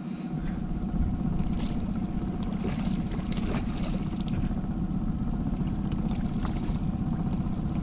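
Outboard motor running steadily at trolling speed: a constant low hum with a faint steady whine above it, the low rumble stepping up just after the start. A few faint splashes of water at the side of the boat.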